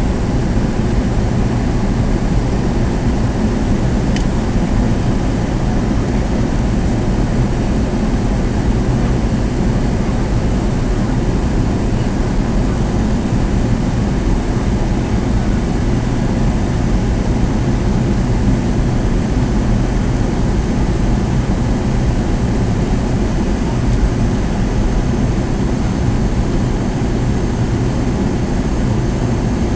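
Steady cabin roar inside a McDonnell Douglas DC-9-51 in flight, heard from a front-row window seat. It is a deep rush of airflow and the rear-mounted jet engines, with a faint high whine over it.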